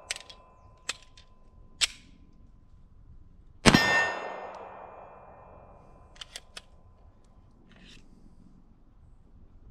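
A single shot from a Polymer80 PF940V2 Glock 17-pattern 9mm pistol about three and a half seconds in, with a long echoing tail. Before it come a few sharp metallic clicks, and about two and a half seconds after it three quick clicks as the pistol is worked by hand. The owner says the slide isn't going all the way back every time.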